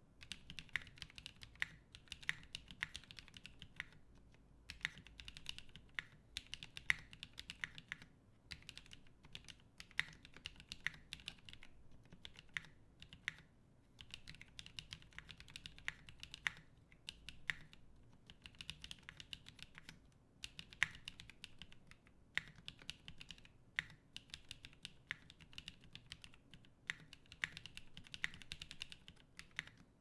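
Touch-typing on an FMJ80 custom mechanical keyboard with lubed NovelKeys x Kailh Cream linear switches, an aluminium half plate and GMK keycaps: quick runs of crisp key clacks, broken by short pauses every few seconds, with now and then a louder stroke.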